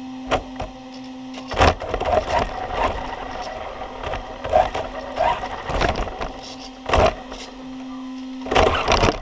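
Off-road RC car pulling away over carpet after a steady hum, then its motor whirring as it speeds up and slows. Several sharp knocks come as the car hits things, the loudest about seven seconds in and near the end.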